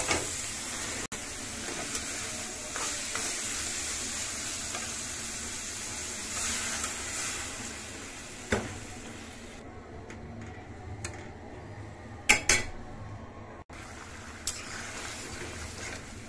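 Small fish sizzling in oil and spice paste in a metal kadai while a metal spatula stirs and scrapes the pan. After about nine seconds the sizzle drops to a quieter simmer, and a few sharp clinks of the spatula against the pan come near the end.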